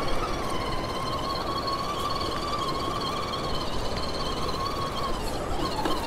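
Axial SCX10 Pro RC rock crawler's Hobbywing Fusion SE brushless motor whining at a steady pitch as the truck drives, fading about five seconds in, over a steady rush of water.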